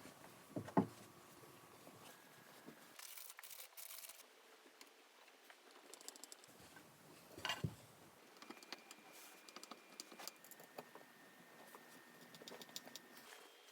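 Scattered small clicks and two sharper knocks as flat-pack furniture parts, pegs and screws are handled during assembly. The louder knocks come about a second in and about halfway through.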